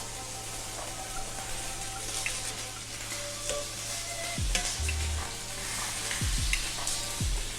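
Chicken sizzling steadily as it fries in a pan, with scattered small crackles and a few low thuds in the second half.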